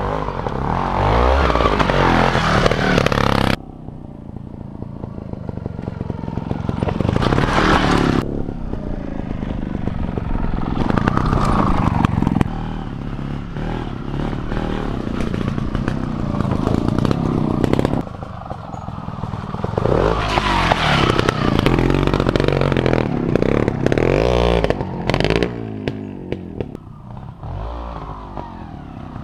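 Beta Rev3 270 trials bike's single-cylinder two-stroke engine blipping and revving in short bursts, the revs rising and falling again and again as the bike works over rocks. The loudness jumps abruptly a few times.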